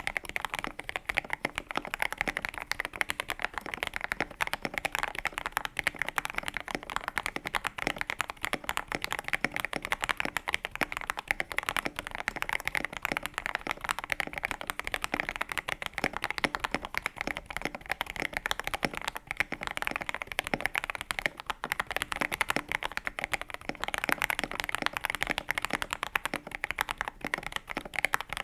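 Fast, continuous typing on a modded KBD67 Lite R3 mechanical keyboard fitted with NicePBT Noel PBT keycaps and Akko CS Jelly White linear switches, dampened with case foam, PE foam and a masking-tape mod. The keystrokes come as a dense, steady stream of clacks.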